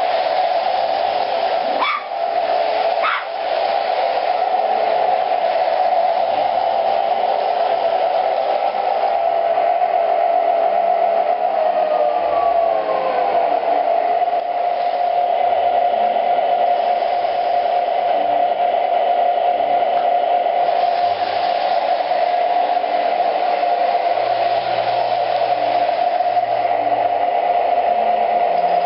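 Model train locomotive running on its track: a steady mechanical whine and hum that drops in pitch about twelve seconds in and then holds steady. Two short sharp sounds come about two and three seconds in.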